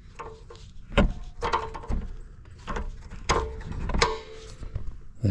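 A hand fumbling behind a plastic RV underbody panel: rubbing and scraping against the plastic, with several sharp knocks and clicks and a few short squeaks.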